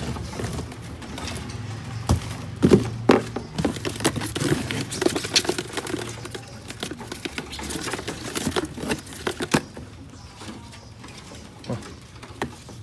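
Scuffling, tapping and rattling as small caged birds scramble and flutter while one is caught by hand, densest in the middle and thinning out near the end.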